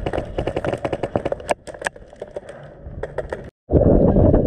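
Airsoft gunfire: a rapid series of sharp clicks and snaps that thins out, with two louder cracks partway through. After a brief dropout near the end, a loud steady rushing noise takes over.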